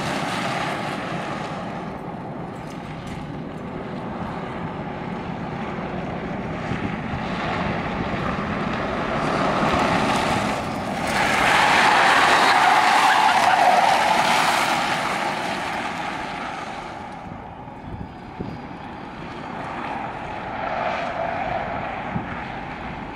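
Open tube-frame kit car driven hard through turns, its engine running under load. The sound swells to its loudest about halfway through, then fades as the car moves off and comes back a little near the end.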